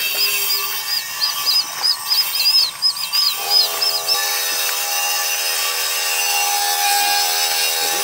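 Short, high chirps repeated several times a second stop about four seconds in. A steady hum with several pitches starts just before that and carries on over a high hiss.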